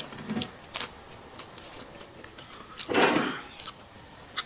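Mouth sounds of eating: scattered small wet clicks and smacks of chewing, and a short breathy rush about three seconds in.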